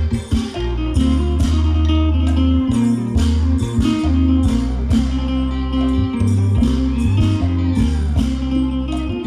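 Isan pong lang ensemble music accompanying a dance, with a plucked lute melody over deep bass notes and regular percussion strikes.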